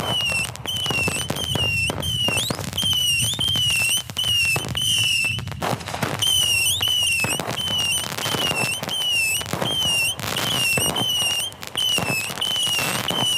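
A fireworks cake firing a rapid string of aerial shells, with sharp bangs and crackling bursts overhead. Over it a high warbling tone repeats very evenly, about one and a half times a second, like a car alarm set off by the blasts.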